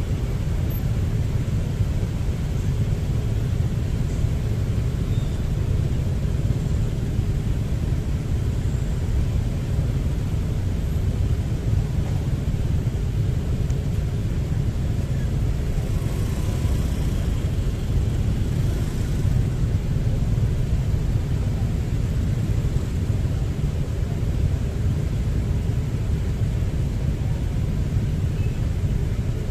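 Steady low rumble of riding a motorbike through traffic: wind, engine and road noise with no breaks.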